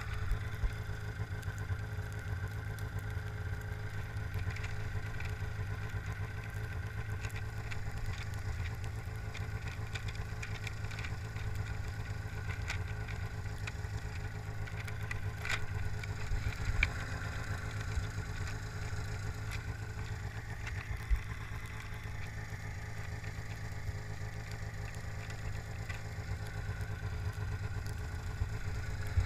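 Arctic Cat ZR 500 snowmobile's two-stroke engine running at a steady pitch as the sled rides, with a few short knocks partway through.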